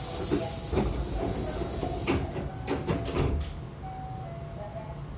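Air-operated doors of a Hankyu 8000-series train closing: a sharp hiss of released air for about two seconds, then a series of knocks and thuds as the door leaves shut.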